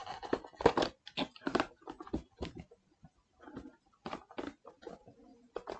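Foil booster-pack wrapper crinkling and tearing as a trading-card pack is opened, a quick irregular run of sharp crackles that thins out near the end.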